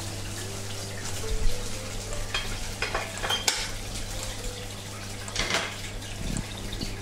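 Aquarium water bubbling and fizzing, with irregular louder crackles, over a steady low hum.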